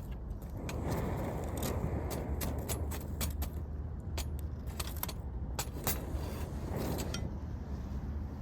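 Wood campfire crackling, with many irregular sharp pops and snaps over a low steady rumble.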